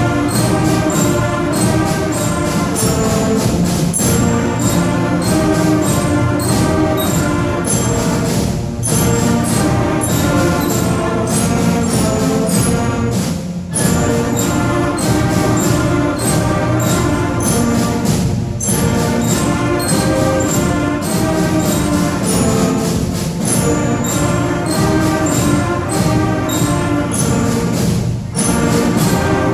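A fifth-grade school concert band playing a march: brass over a steady percussion beat, with short breaks between phrases every few seconds.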